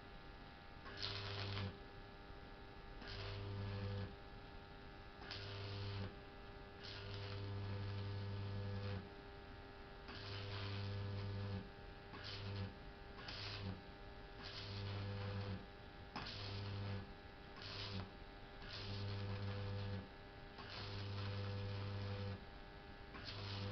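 Welder built on a simple choke, repeatedly striking and holding an arc: a loud mains hum comes on in about a dozen bursts of half a second to two seconds, most opening with a crackle, over a fainter steady hum.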